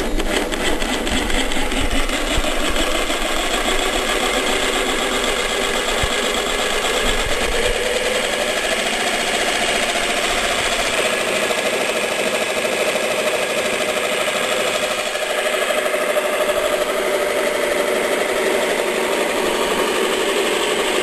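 Extol 500 W jigsaw, mounted upside down under a table as a scroll saw, running steadily with its blade reciprocating; the pitch rises slightly about eight seconds in.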